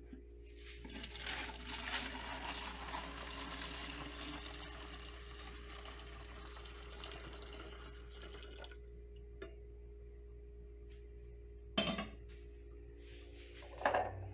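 Liquid poured from a stainless steel pot into a large glass jar, a steady splashing pour lasting about eight seconds. Near the end come two sharp knocks, the loudest sounds.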